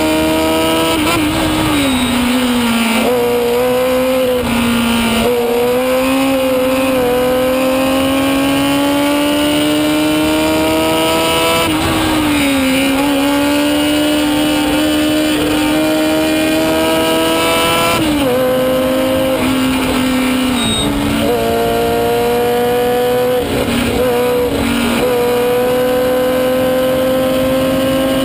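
1970 Chevron B17's 1000cc four-cylinder Formula 3 "screamer" engine at high revs, heard onboard. Its note climbs steadily for several seconds at a time and drops sharply a few times as the driver changes gear.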